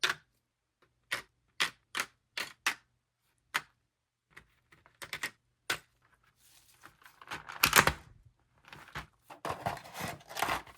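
About a dozen separate sharp clicks, then a denser run of rustling and scraping from about two-thirds of the way in, as plastic figure parts and packaging are handled during an unboxing.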